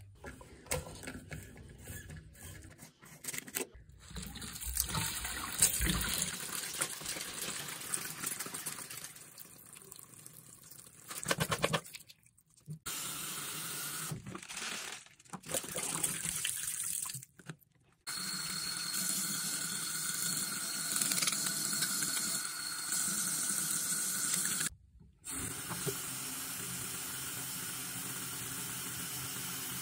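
Tap water running from a sink faucet into a plastic bottle, filling it. The running breaks off and starts again several times.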